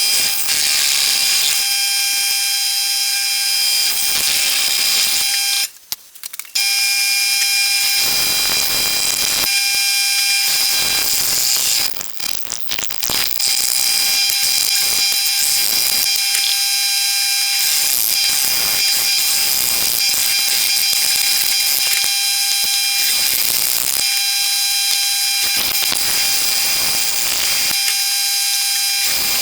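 A CNC router running, a steady high-pitched whine with a hiss above it. It cuts out briefly about six seconds in and drops again around twelve seconds before carrying on.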